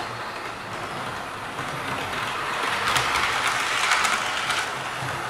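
Model Blue Pullman train running past on the track, its wheels rattling and clicking over the rail joints. It grows louder from about two and a half seconds in and passes nearest around three to four seconds, with a few sharp clicks.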